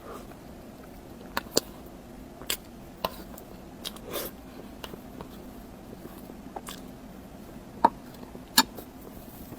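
Close-miked eating sounds: scattered wet mouth clicks and smacks while chewing, a few a second at most, with the two loudest near the end.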